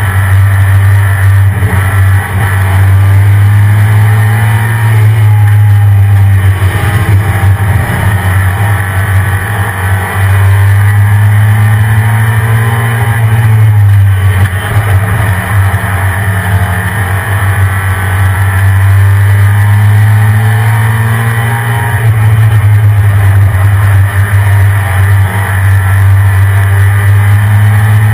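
1993 Ford SVT Lightning pickup's stock 5.8-litre V8 running continuously, its note slowly rising and falling with the throttle.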